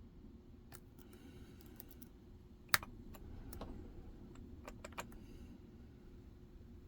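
Small metal clicks and ticks of a lock pick working the pins in a Medeco six-pin KIK cylinder while tension is held, with one sharper click a little under three seconds in.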